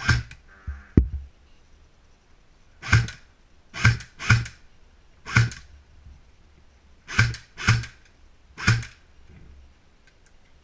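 Airsoft M4 rifle firing single shots, about eight sharp cracks at irregular intervals of half a second to two seconds.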